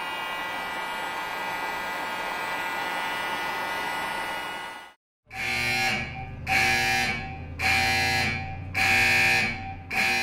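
A 1500-watt Harbor Freight heat gun blows steadily and then cuts off about five seconds in. After a brief silence, a loud alarm buzzer blares in about five pulses, roughly one a second.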